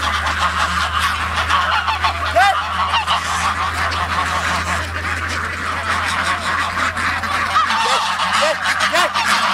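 A large flock of domestic geese and ducks calling: many short honks overlap without a break.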